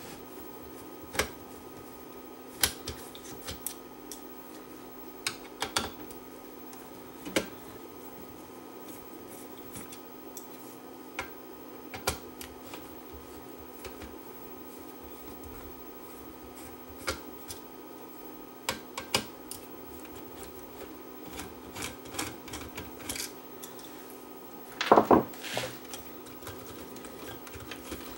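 Scattered clicks and taps of a screwdriver, screws and small metal and plastic parts being handled while the motorised volume control assembly is unscrewed from the Pioneer A-X50 amplifier's chassis, with a cluster of louder knocks near the end. A faint steady hum runs underneath.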